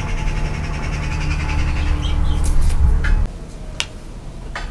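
Outdoor ambience with a low rumble and a few birds chirping; the rumble stops suddenly about three seconds in.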